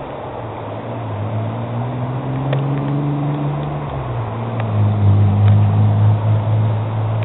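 Steady rush of a rain-swollen stream under a low engine-like hum that shifts pitch and grows louder about four seconds in.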